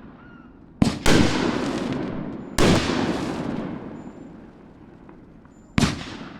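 Hammer & Anvil 'Foxtrot' 500g firework cake firing its hitter shots: sharp, loud bangs with a long fading rumble after each. There are four reports: two in quick succession about a second in, another about a second and a half later, and one near the end.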